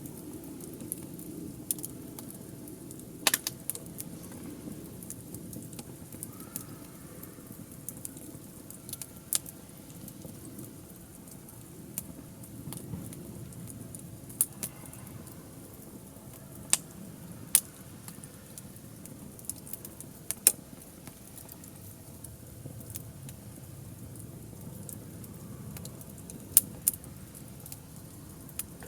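Wood fire crackling in a fire pit: a steady low rustle of burning with irregular sharp pops and snaps, about a dozen loud ones scattered through.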